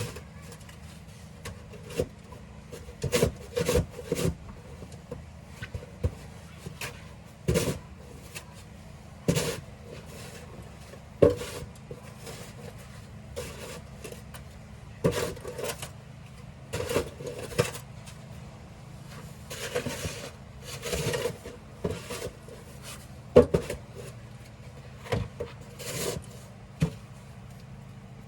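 Snow shovel scraping and pushing snow over pavement, in irregular strokes about every one to two seconds, with a few longer scrapes past the middle.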